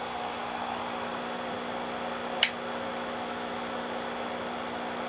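Steady electrical hum of a GEEETECH Prusa i3 3D printer's power supply at its first power-up, several pitched tones held level, with one sharp click about two and a half seconds in. The supply's voltage switch is set to 220 V.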